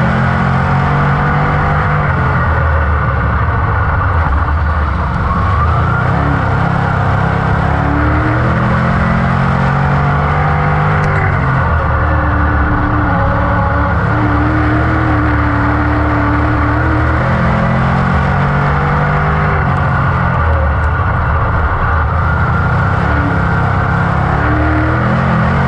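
GM 602 crate small-block V8 of a dirt-track modified at race speed, heard from inside the cockpit: loud and continuous, climbing in pitch on the straights and dropping as the driver lifts for the turns, about every five to six seconds.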